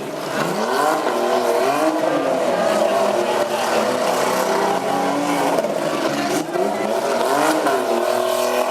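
Small pickup truck engines revving up and down several times, rising and falling in pitch.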